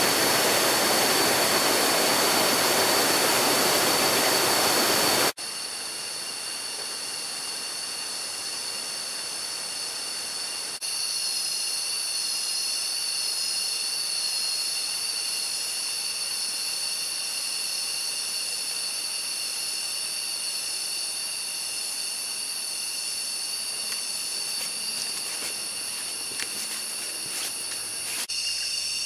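Loud rushing water from a jungle stream or waterfall for the first five seconds or so. It cuts off suddenly and gives way to a steady high-pitched drone of tropical forest insects, several held tones layered together.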